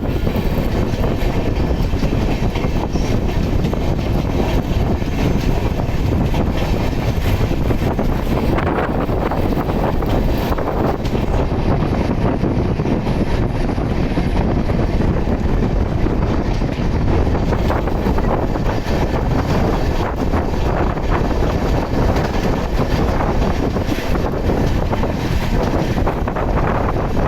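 Steady rumble of a moving train with wind buffeting the microphone.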